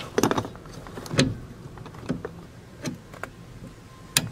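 Small metal clicks and taps as a pin and split pin are fitted back into the clutch pedal linkage by hand, a handful of scattered clicks with the sharpest near the end.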